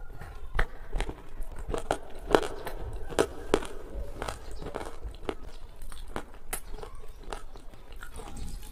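Close-miked mouth sounds of someone chewing soft jamun (black plums) with a creamy white coating: wet smacks and sharp clicks, busiest in the first half and sparser toward the end.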